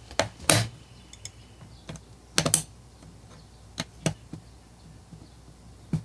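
Small plastic and metal mower-engine parts clicking and clacking as they are handled and fitted together by hand, in uneven single clicks with a louder cluster about two and a half seconds in.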